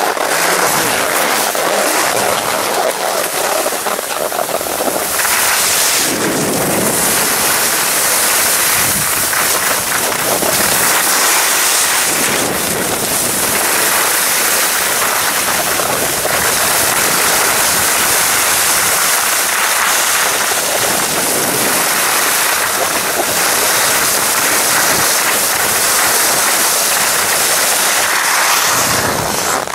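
Wind rushing over the microphone mixed with skis hissing and scraping on snow during a downhill run, a steady loud rush.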